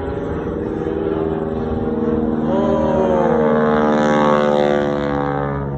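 Low-flying airplane's engine passing overhead: a steady drone of several tones that grows to its loudest about four seconds in, then eases off.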